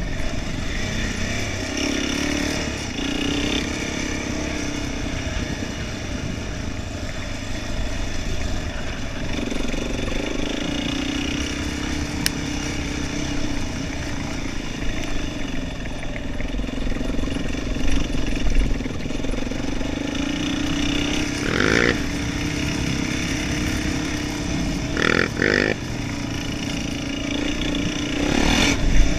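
Quad bike engine running under way over rough grass and mud tracks, its note mostly steady, with a few short louder bursts in the second half.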